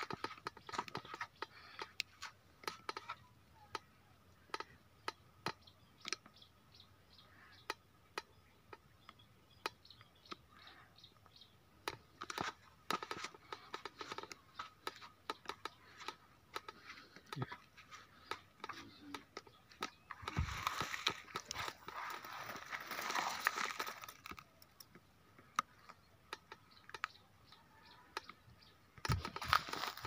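Footsteps crunching irregularly on rock and grit, with a louder stretch of rustling about two-thirds of the way through.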